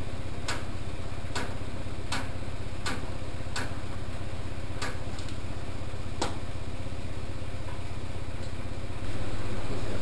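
Program selector knob of a vintage AEG Lavamat washing machine being turned by hand, clicking through its positions about once every three-quarters of a second and stopping about six seconds in, over a steady low hum.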